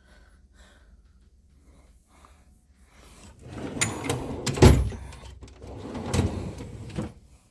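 Metal drawer of a Snap-on tool chest being slid shut and the next one pulled open, the tools inside rattling, with a sharp metal knock about halfway through and another near the end.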